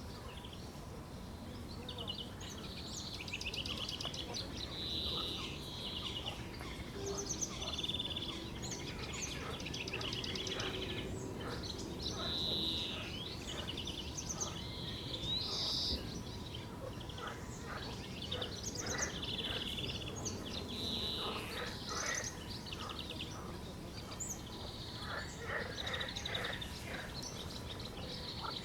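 Bird song by the reeds: a stream of short, chattering, repeated phrases, high-pitched, over a steady low background hiss of the lakeside outdoors.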